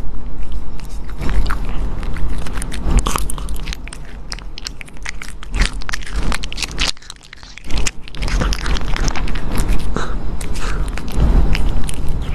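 A pet crunching and chewing crisp food close to the microphone: rapid sharp crunches, with a short pause about seven seconds in before the crunching resumes.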